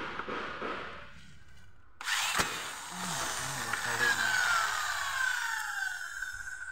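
Corded electric hand drill starting up suddenly about two seconds in and drilling into a metal frame, its motor whine falling steadily in pitch as the bit bites.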